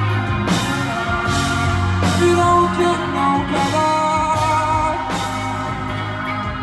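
Live concert music over a venue sound system: singing over held bass notes and a sustained melody.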